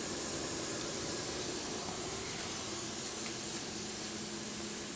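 Steady hiss with a faint low hum underneath, unchanging throughout: machine-shop background noise.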